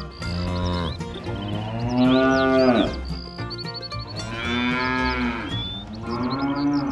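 Cattle mooing: four long, drawn-out moos, the loudest about two seconds in. Short high chirps sound above them.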